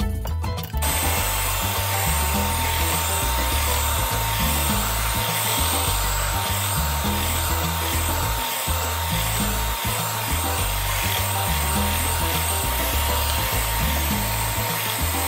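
Electric hand mixer running steadily, beating coconut cream, switched on about a second in: a steady motor whine with beater noise, over background music.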